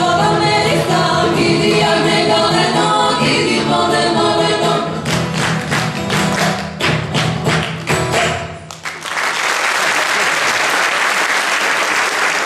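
Folk ensemble of several male and female singers with a goblet drum (darbuka), acoustic guitar and violin, singing to the song's end; about five seconds in, a run of sharp, loud strokes closes the song. From about nine seconds in the audience applauds.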